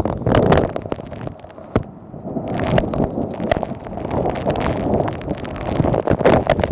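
Storm wind gusting hard across the microphone, rising and falling in surges, with scattered sharp pops and clicks, several of them near the end.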